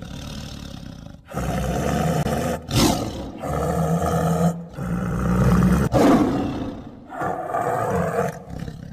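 A big cat roaring over and over, about six roars in a row, each lasting about a second with short gaps between them.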